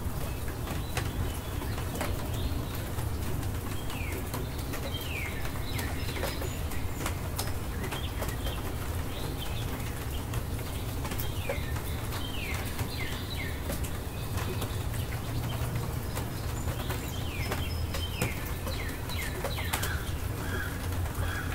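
Birds calling: repeated short chirps that slide downward, over a steady low background with scattered sharp ticks.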